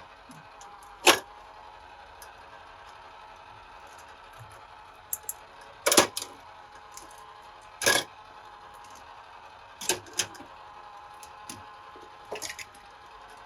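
Toy cars being handled, clicking and knocking against each other or a plastic track: about half a dozen sharp, separate clacks over a faint steady hum.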